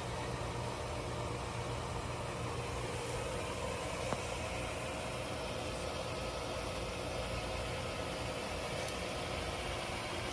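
Steady mechanical hum of running equipment, with a few held tones over an even noise, and a single small click about four seconds in.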